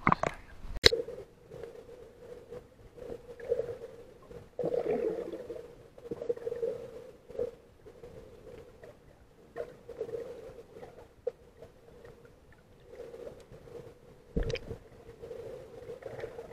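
Muffled underwater sound picked up through an action camera's waterproof housing: a low hum that swells and fades irregularly, with a sharp click about a second in and a dull knock near the end.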